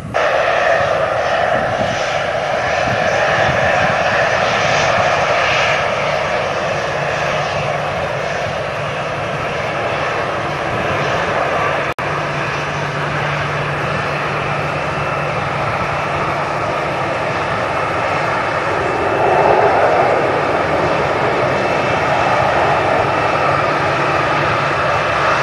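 Airliner engines running loudly and steadily, with a faint steady hum under the roar. A brief dropout about halfway through marks a cut in the recording.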